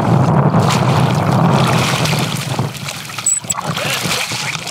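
Boat motor running with water rushing along the hull; the engine noise drops away about two and a half seconds in, leaving splashing in the water beside the boat.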